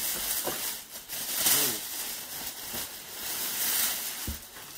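Plastic wrapping and tissue paper crinkling and rustling as a packed item is handled and unwrapped inside a cardboard box, louder in surges, with a soft bump near the end.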